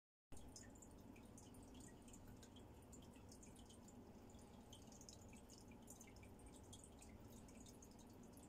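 Aquarium water trickling and bubbling faintly: many small, irregular drips and pops over a steady low hum.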